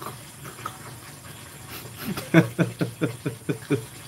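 A man laughing: a quick run of short laughs starting about halfway through, after a quieter stretch.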